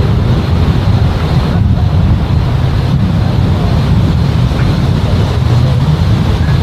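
Wind buffeting the microphone in a steady, loud low rumble, with the very distant Leonardo AW139 helicopter only faint beneath it.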